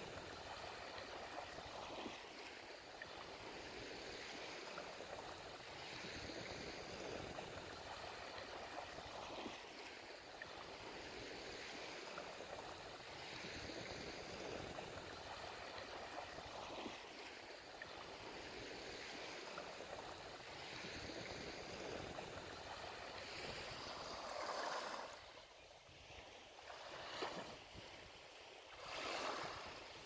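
Black Sea waves washing onto the shore. The surf is a steady wash that swells every two to three seconds. Near the end, a few louder breaks come with brief lulls between them.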